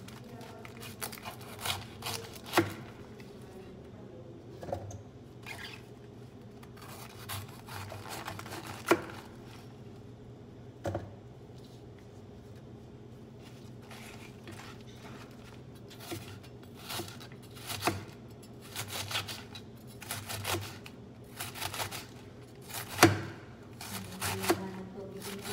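Chef's knife shredding a head of cabbage on a plastic cutting board: irregular cutting strokes with knocks of the blade on the board, coming faster in the second half.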